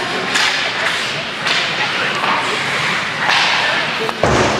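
Ice hockey play on the rink: skate blades scraping and carving across the ice in several hissing bursts, then a sharp, heavy thud near the end.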